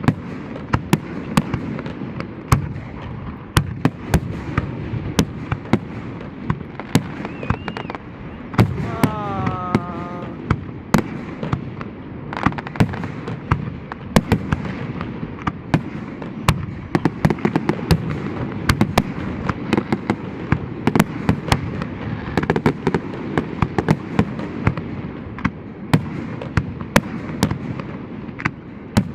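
Fireworks display going off: a rapid run of sharp bangs and cracks, many close together, over a continuous rumble.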